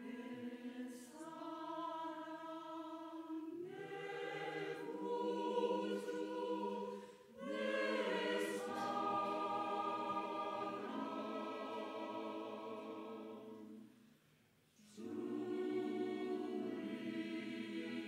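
Mixed church choir of men's and women's voices singing in held, sustained phrases. There is a brief break about seven seconds in, then a pause of about a second later on before the choir comes back in.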